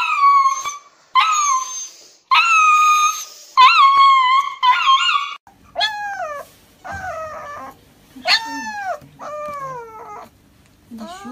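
Husky puppies howling and crying while held down: first long, steady wailing howls, then, after about five seconds, a run of shorter cries that each fall in pitch.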